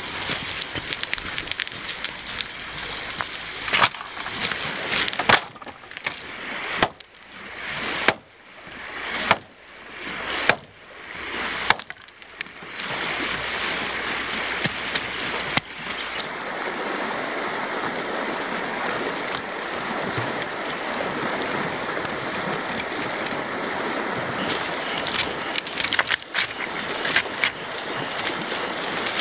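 Shallow river running over a stony riffle, a steady rush of water. Between about four and twelve seconds in, a run of sharp knocks comes roughly a second apart, from sticks being handled on the river stones.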